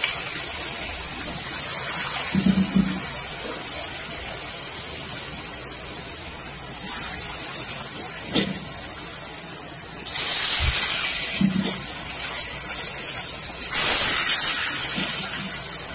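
Chana dal pakoras deep-frying in hot oil in a kadhai: a steady sizzle that swells into two louder, hissier surges, about ten and fourteen seconds in.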